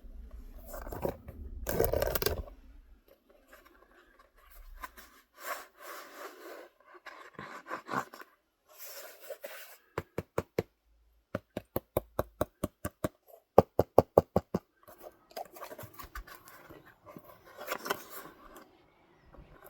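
Rustling and scraping from handling a shoe box and its packaging. About halfway through comes a run of quick sharp clicks, roughly six a second, lasting about four seconds.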